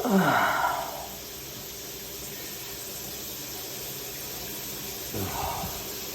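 A person with a flu-blocked nose breathing during steam inhalation: a sighing breath out at the start, then a steady hiss, and a short sniff about five seconds in.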